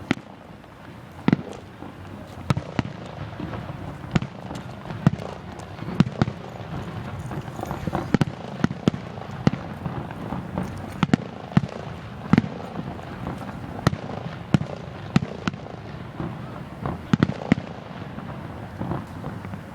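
Fireworks going off: a fast, irregular string of sharp bangs, at times several a second, over a continuous rumble.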